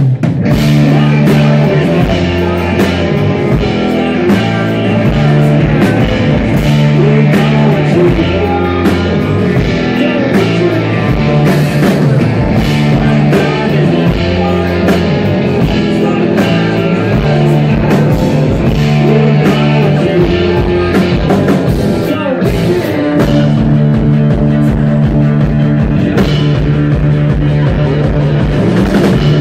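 Rock band playing loud and live: electric guitar, bass guitar and drum kit, with steady drum and cymbal hits under the guitars.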